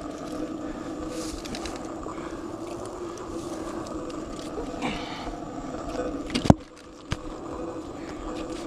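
Mountain bike ridden along a dirt trail, with steady tyre and drivetrain rolling noise. A sharp knock comes about six and a half seconds in, the noise drops away for about half a second, and a smaller click follows.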